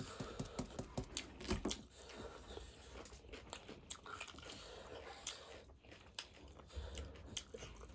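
Close-miked chewing and biting of pork feet, with many irregular crunching clicks.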